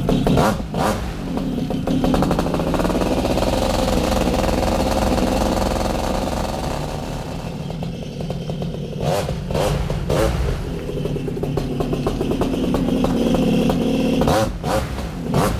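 Air Conception Tornado 280 paramotor's two-stroke engine and propeller running on a new engine's warm-up for break-in. It runs steadily, with the pitch rising about two seconds in.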